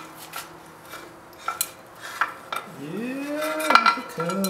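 Light metallic clinks and taps as the Kawasaki KLR 650's valve cover is worked loose by hand. A little under three seconds in, a drawn-out voice-like call rises and then falls in pitch, and another begins near the end.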